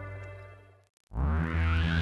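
Background synthesizer music fades out, cuts to a brief silence, and a new sustained synth chord comes in about a second in.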